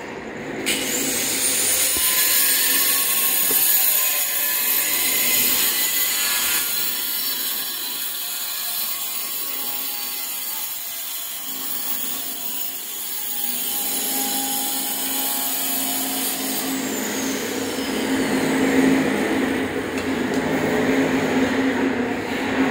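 High-speed electric power tool motor winding up about a second in and running with a loud, hissing high-pitched whine. It winds down with a falling pitch after about seventeen seconds, leaving a lower steady hum.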